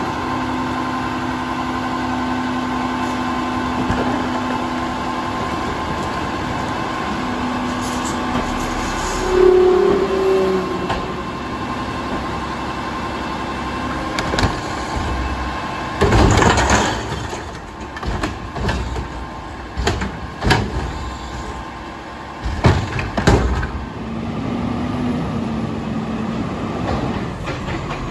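Front-loader garbage truck with a Curotto-Can cart arm running steadily, its engine and hydraulics humming. From about halfway there is a run of loud bangs and clatter, then a steady hum again.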